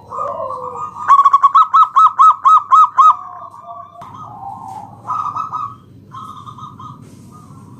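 Zebra dove (local perkutut) cooing: a fast run of about nine loud, clipped notes starting about a second in, followed by softer rolling coos.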